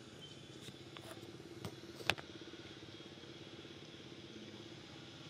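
Faint steady hum like an engine running at a distance, with a few short sharp clicks, the loudest about two seconds in.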